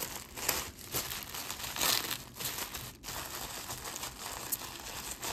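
Wrapping crinkling and rustling in irregular bursts as a wrapped piece of jewelry is unwrapped by hand, loudest about two seconds in.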